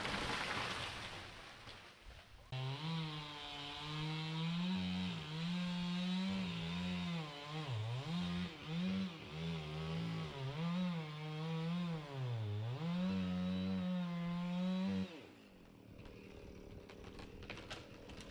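Two-stroke chainsaw cutting into a tree, its engine pitch repeatedly sagging under load and recovering, then stopping abruptly near the end. It is preceded by a couple of seconds of rushing noise.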